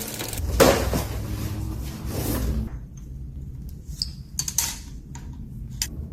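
Bicycle hand pump in use, air rushing through it for about two and a half seconds, then stopping. Light clicks and knocks follow as the parts are handled.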